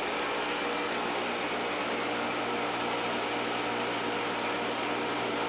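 The 20 hp electric motor of a solar-powered atta chakki (wheat flour mill) running steadily and driving the mill through V-belts. It makes a steady hum under an even whirring noise.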